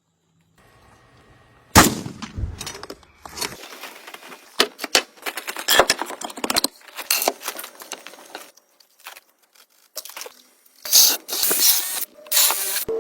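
Construction work: an irregular series of sharp knocks and metal clanks, the loudest a single hard hit a couple of seconds in, with short hissing noise bursts near the end.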